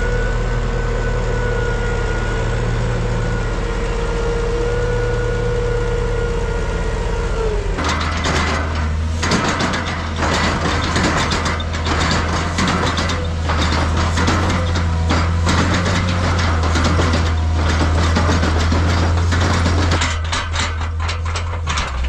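A large engine running steadily with a deep drone and a few fixed tones; about eight seconds in it changes to a rougher, busier noise with rapid clatter over a stronger low drone, as of a machine working under load.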